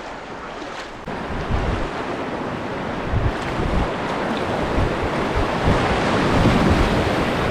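River water rushing steadily around a kayak, with wind buffeting the microphone in low rumbling gusts. It gets louder about a second in.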